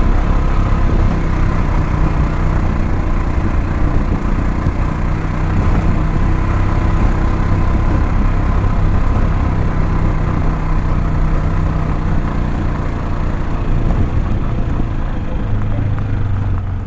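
A motor vehicle's engine running steadily, a low hum that shifts in pitch a little near the end.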